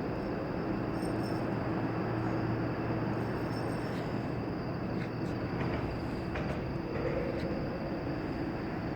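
A steady low mechanical rumble with a constant low hum, like distant engine or machinery noise.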